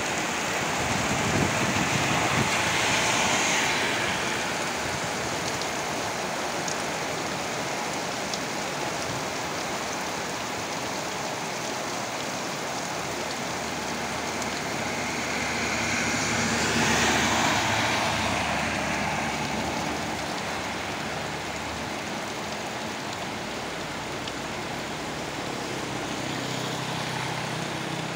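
Heavy rain falling steadily, with water pouring off a roof edge onto wet pavement, a continuous hiss. The hiss swells louder twice, about two seconds in and again around sixteen to eighteen seconds in.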